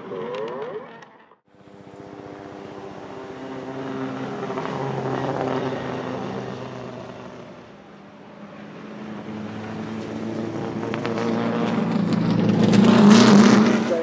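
Audi Sport Quattro S1 E2 Group B rally car's turbocharged 2.1-litre inline five-cylinder engine running hard, drawing steadily louder as it approaches and loudest as it passes close, about a second before the end. The sound cuts out briefly about a second in.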